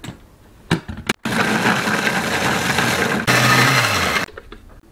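Electric blender with a stainless steel jar grinding red chili peppers in one short run: a click or two, then the motor runs about three seconds, getting louder near the end, and winds down with a falling hum as it is switched off. The run is kept brief so the chilies stay coarse, with some grain left in them.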